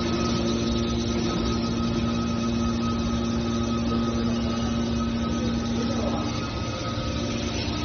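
Hydraulic scrap steel baler's motor and pump running with a steady hum. The main low tone of the hum drops away about six and a half seconds in.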